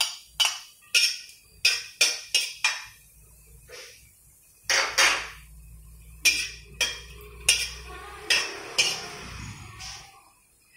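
Metal spoon and utensils clinking and scraping against a ceramic plate and a Saladmaster stainless steel wok: a quick run of sharp taps in the first few seconds as garlic is knocked off the plate, then spaced clinks of metal on the wok.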